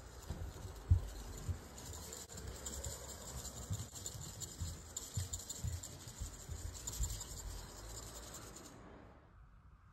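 Hand-held camera handling and movement noise: soft irregular thumps and scratchy rubbing over a steady hiss, which drops away about nine seconds in.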